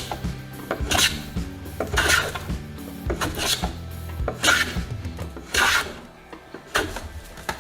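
Hand file or rasp worked in steady push strokes, about one stroke a second, each a short rough scrape.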